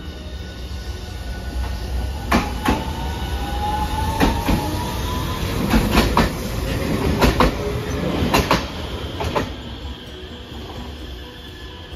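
A Hiroden low-floor articulated tram pulling out and passing close by: its wheels clack over rail joints in quick pairs, about a dozen clacks in all, over a low running rumble, with an electric motor whine rising in pitch as it gathers speed.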